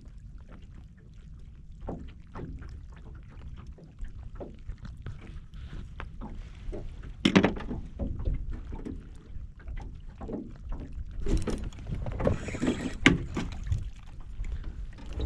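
Wind rumbling on the microphone, with scattered knocks and clicks throughout and a short hissing rush about eleven to thirteen seconds in.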